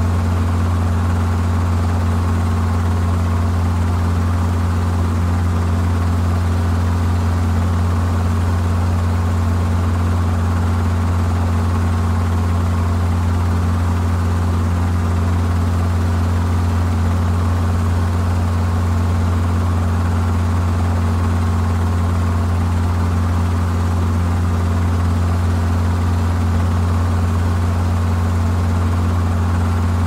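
Helicopter running steadily: a constant low drone that holds the same pitch and loudness throughout.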